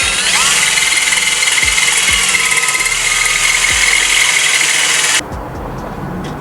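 Power drill running in one long burst with a high whine, cutting off abruptly about five seconds in.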